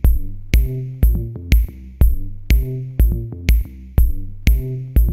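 Electronic background music with a steady drum-machine beat, about two kick-drum hits a second, over a bass line.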